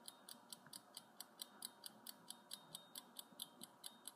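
Fast, even clock-like ticking, about six ticks a second: a ticking-clock 'waiting' sound effect.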